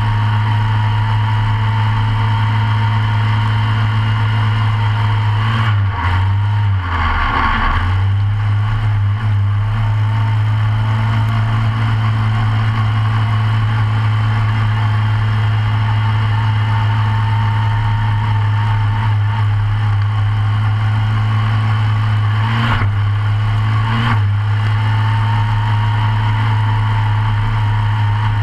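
Short-course off-road kart's engine idling steadily, heard close up from inside the cockpit, with a brief unsteady moment about seven seconds in and two short blips near the end.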